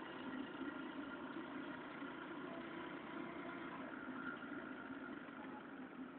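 Faint, steady engine hum with no distinct events.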